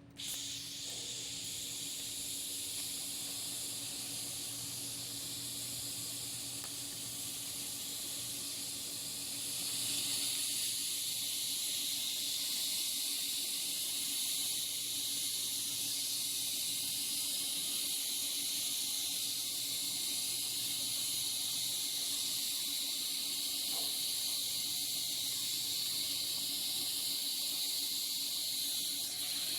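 TIG welding arc hissing steadily over a low hum while a bead is walked with a large gas-lens cup. The arc strikes abruptly at the start and gets a little louder about ten seconds in.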